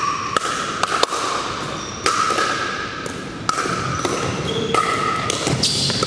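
Pickleball paddles hitting the hollow plastic ball: sharp, irregular pocks about once a second from rallies on this and neighbouring courts, echoing in a large gym hall, with short squeaks in between.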